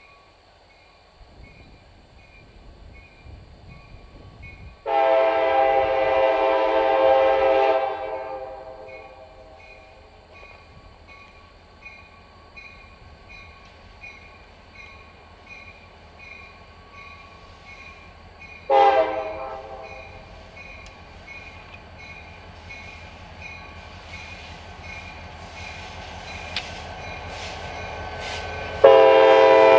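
Locomotive multi-chime air horn sounding a long blast about five seconds in, a short blast about two-thirds through, and another loud blast starting near the end. Under it is the low rumble of an approaching train that slowly grows louder.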